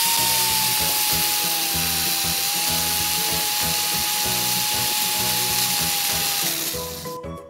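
Corded electric drill spinning a long threaded rod, its motor whine rising briefly as it comes up to speed, then holding a steady pitch until it stops about six and a half seconds in. Background music plays underneath.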